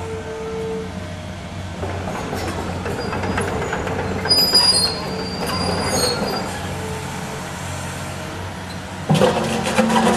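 Demolition machinery's engine running steadily, with high metallic squeals about four seconds in and a sudden loud clattering about nine seconds in.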